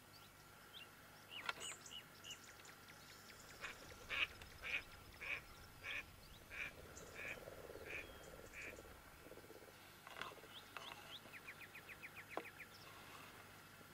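Faint bird calls: a run of about nine evenly spaced harsh calls, a little under two a second, then a fast rattling trill near the end.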